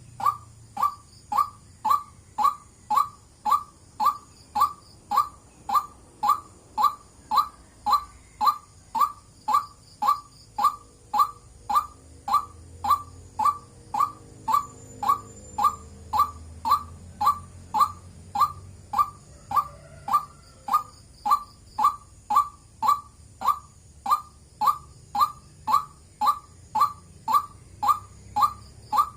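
White-breasted waterhen calling, one short note repeated at an even pace of nearly two a second with no break.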